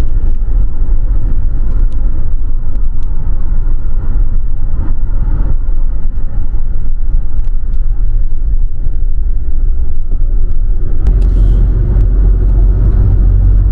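Car on the move: a steady low rumble of engine and road noise, which grows louder about eleven seconds in.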